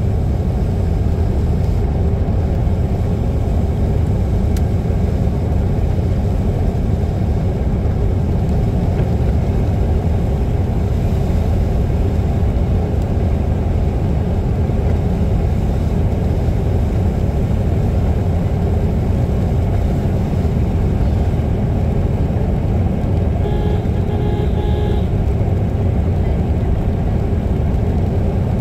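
Steady low rumble of a car's engine and tyres heard from inside the cabin while driving along a wet road. A brief pitched tone sounds for about a second and a half, a few seconds before the end.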